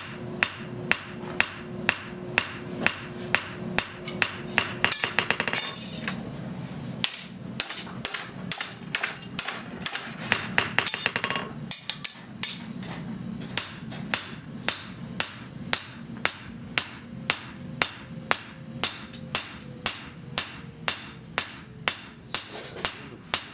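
Hammer blows on hot steel as a Japanese kitchen knife blade is forged: ringing strikes at about two a second, with two stretches of faster, denser hammering in the first half.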